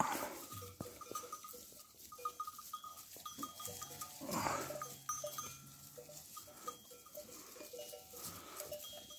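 Goat bells clinking on and off as the herd grazes, with one goat bleating about four seconds in.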